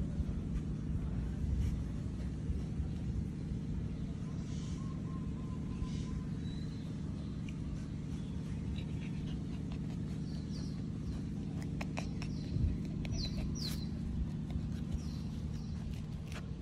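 A steady low mechanical hum, like a motor running nearby. In the second half come a few short, high, falling chirps, like small birds.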